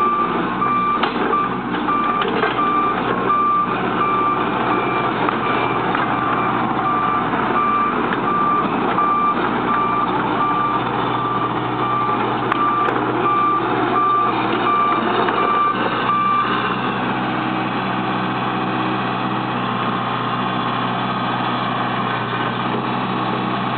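Kobelco SK80CS excavator running, with its travel alarm beeping steadily over the diesel engine as the machine moves; the beeping stops about two-thirds of the way through while the engine keeps running.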